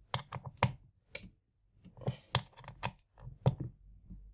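Allen key clicking against the bolts of a two-bolt Shimano SPD cleat as they are tightened down: a run of irregular sharp clicks in small clusters.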